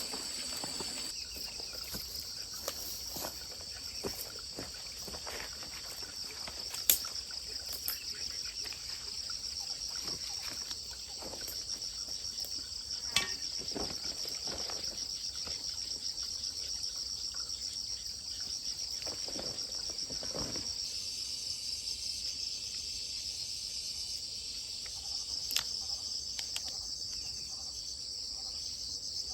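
Insect chorus, a continuous high pulsing trill, with a few sharp clicks and soft knocks over it.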